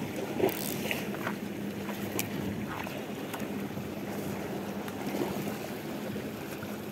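Steady low drone of a distant boat engine that fades about halfway through, over sea water lapping at rocks, with a few light clicks of fishing gear being handled.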